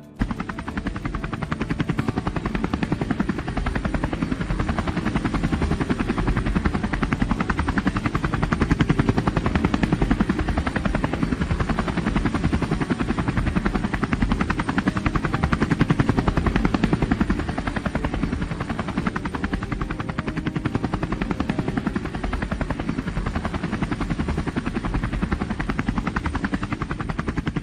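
A helicopter's rotor chopping steadily: a fast, even beat over a low rumble.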